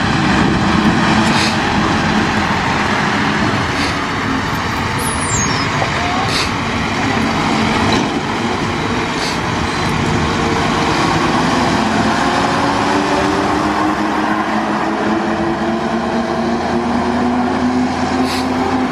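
Old Mercedes-Benz truck's diesel engine running as the truck drives by on a dirt road, a steady engine note that climbs in pitch over the last few seconds.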